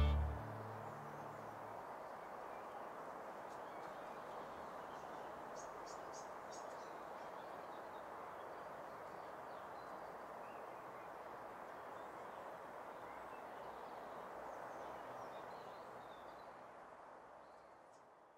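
Soft outdoor ambience: a steady, faint rushing noise with a few faint bird chirps about six seconds in, fading out near the end.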